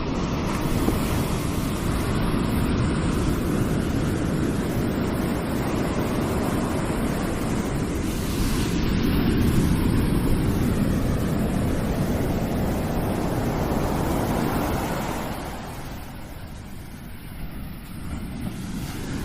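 Ocean surf washing on the shore: a steady rush of breaking waves that swells around the middle and eases off about three-quarters of the way through.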